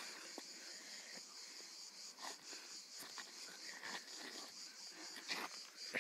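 Faint, steady high-pitched chirping of insects, with a few soft knocks about two, three and five seconds in.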